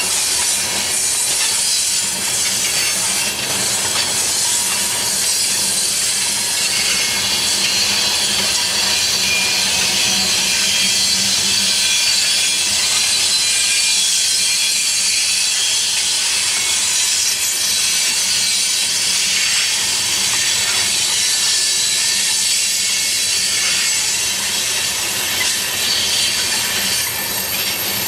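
A string of loaded coal cars rolling steadily past on curved track: a continuous rush of wheels on rail, with thin high squeals from the wheels working the curve.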